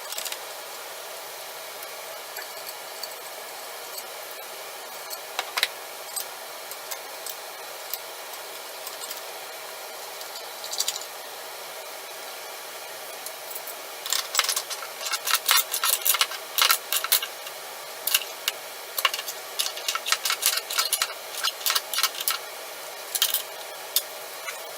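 Irregular sharp clicks and light clatter over a steady hiss. The clicks are scattered at first and come thick and fast through the second half.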